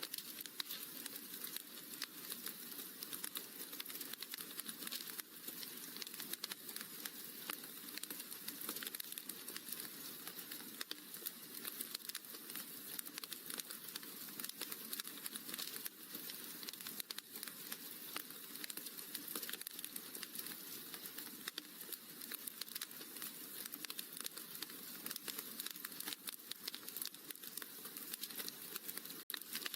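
Wood fire crackling in a fireplace: a dense, steady run of small pops and crackles over a soft hiss.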